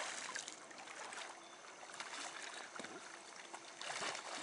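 Shallow river water rushing and hissing around wading legs, with a hooked fish splashing at the surface as it is played; the splashing grows louder near the end as the fish is reached in the water.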